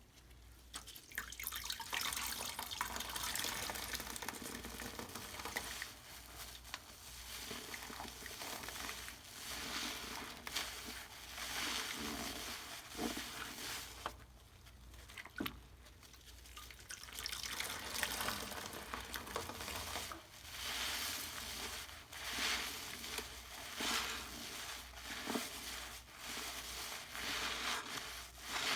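Purple Pinalen cleaner being squished and wrung out, wet liquid sounds with dripping and a fine crackle, swelling and easing in waves every few seconds with a short lull about halfway.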